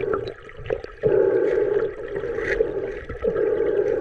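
Muffled underwater sound of river water moving around a submerged camera, with a few short clicks and taps mixed in.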